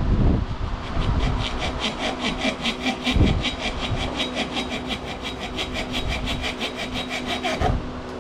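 Rapid, evenly spaced ratcheting clicks, about six a second, for several seconds while a hose fitting on the brake system is worked loose, over a steady hum.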